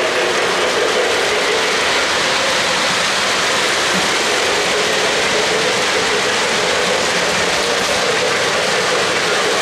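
O-gauge three-rail model freight train rolling past, its cars' metal wheels running on the track with a steady, even rumble and clatter.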